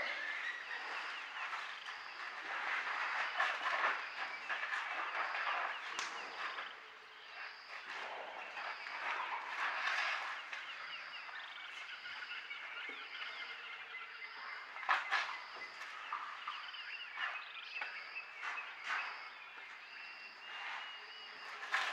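Morning chorus of birds and frogs calling together: dense chirping and trilling, with a high note pulsing about once a second. A few sharp knocks cut through, the loudest about two-thirds of the way in.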